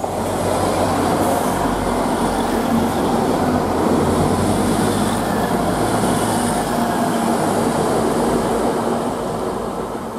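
Grand Central Class 180 Adelante diesel multiple unit passing at speed, its underfloor diesel engines running steadily under the rumble of its wheels on the rails. The rumble eases slightly near the end.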